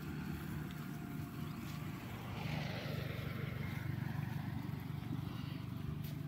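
A motor running steadily in the background: a low, even drone that holds the same pitch throughout.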